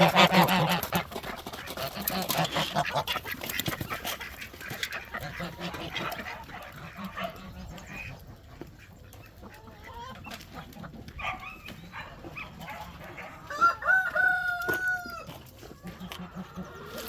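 Farmyard poultry calling at feeding time: loud honking at the start dies down into scattered clucking and calls, then a rooster crows once near the end.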